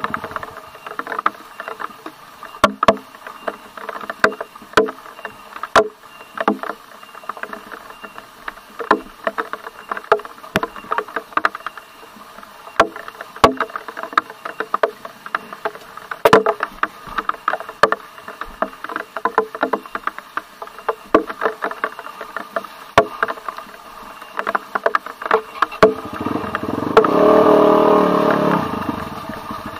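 Trail dirt bike engine running at low revs over a muddy, rutted track, with frequent sharp knocks and rattles as the bike jolts over the ruts. Near the end the engine revs up louder for a few seconds, then eases off.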